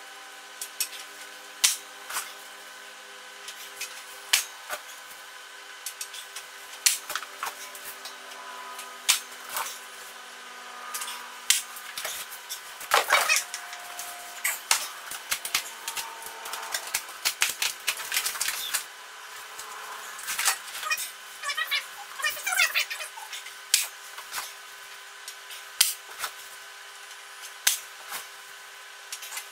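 Irregular clicks, taps and knocks of parts and tools being handled while a Smith machine and cable gym is assembled, thickening into quicker rattling clicks in the middle, over a faint steady hum.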